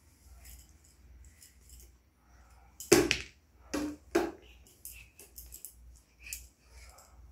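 Hollow plastic toy cricket bat knocking three times, about three seconds in and twice more within the next second and a half, the first the loudest, each with a short hollow ring. Light scuffs and taps of play around it.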